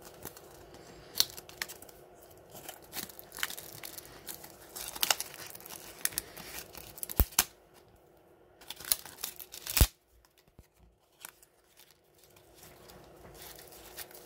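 Card-and-plastic blister packaging of a nano SIM adapter set being handled and torn open: irregular crinkling and sharp crackling snaps, the loudest near ten seconds in, then only faint handling.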